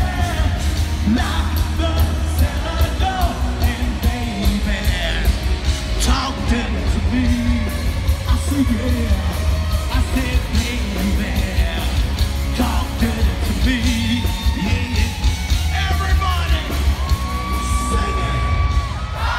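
A live rock band playing loud, with a lead singer and shouting from the crowd, heard from the audience with heavy, overloaded bass. Near the end a single note is held for a second or two.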